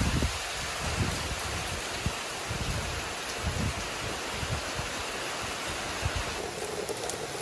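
Steady rain falling on trees and ground. A few low rumbling swells run under it, the loudest right at the start.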